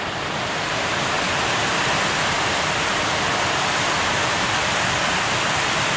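Heavy rain falling on a sheet-metal carport roof and the ground around it, a steady, dense hiss.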